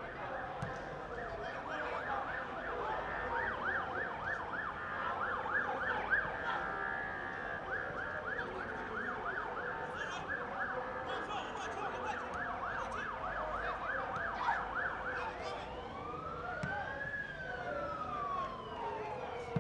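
A siren sounding in a fast yelp, rapid rising-and-falling sweeps several times a second, then about sixteen seconds in switching to a slow wail that rises and falls.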